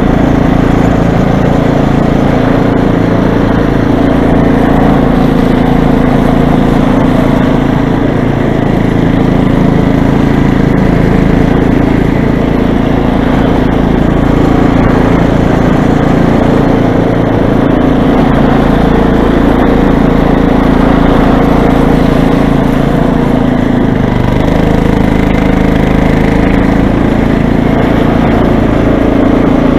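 Toro snow blower engine running steadily while clearing snow, its note shifting about three-quarters of the way through.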